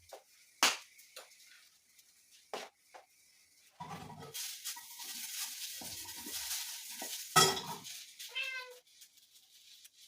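A kitten gives one short meow near the end, over kitchen sounds: clinks and knocks of utensils and pans and a few seconds of hissing.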